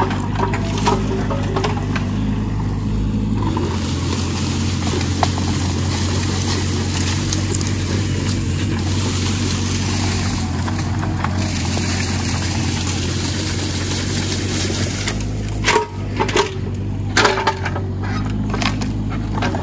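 Mini excavator engine running steadily, with a cluster of sharp knocks and cracks near the end as the machine works brush and wood.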